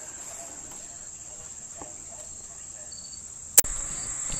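Crickets trilling steadily, a continuous high-pitched chirring, with a single sharp click about three and a half seconds in.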